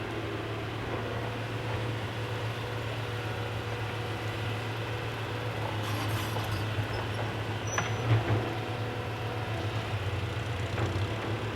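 Excavator engine running steadily at a low drone, with a couple of short knocks about eight seconds in.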